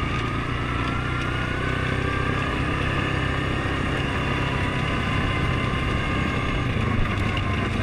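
Suzuki King Quad 750 ATV engine running steadily while riding along, with a thin whine that rises gently in pitch over the first few seconds, then holds steady.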